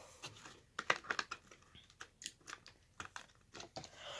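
Small items and packaging being handled, giving irregular light clicks and taps.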